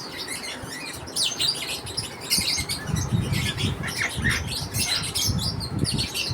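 A flock of lovebirds chirping and squawking constantly, many short high calls overlapping. From about three seconds in a rapid patter of low taps and knocks joins the chirping.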